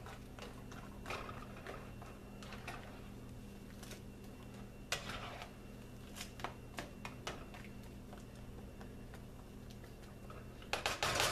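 Spatula stirring and scraping wet, rehydrated egg crumbles in a nonstick skillet: scattered soft scrapes and clicks against the pan over a steady low hum, with a louder burst of scraping noise near the end.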